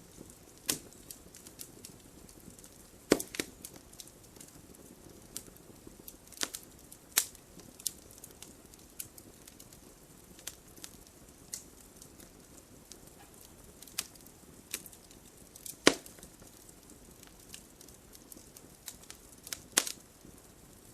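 Wood fire crackling: irregular sharp pops and snaps over a soft low hiss, with a few louder pops about three seconds in, near the middle and twice near the end.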